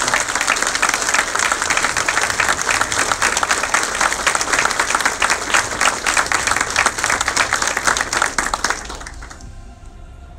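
Audience applauding, dense and steady, then fading out about nine seconds in as faint music comes in.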